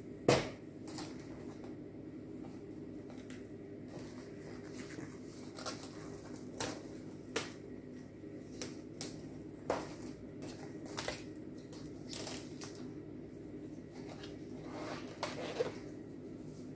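Stiff foam-board puzzle sheets being handled, slid and set down on a wooden table: scattered sharp taps and rustles, about a dozen over the stretch, the loudest near the start, over a steady low hum.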